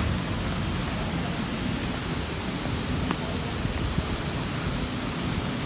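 Steady rushing noise of rice mill machinery running.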